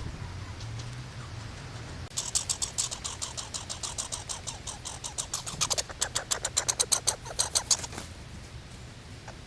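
Squirrel chattering: a fast run of sharp, high clicks that starts about two seconds in, grows louder, and stops about two seconds before the end.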